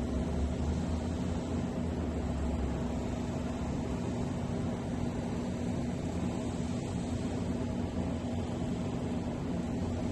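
Steady low rumbling noise with a constant hum, unchanging throughout.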